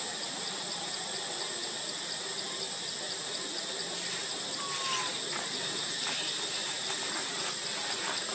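Steady forest ambience: a continuous high insect drone over an even hiss, with a brief falling whistle about halfway through.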